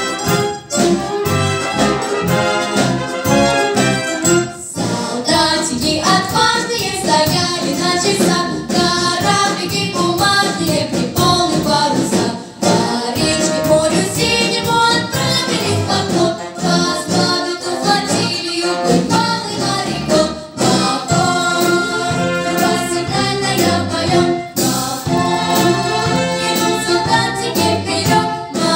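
Children's vocal ensemble singing together with a live military band accompanying on saxophones, brass and drum kit. The band plays alone for the first few seconds, then the voices come in.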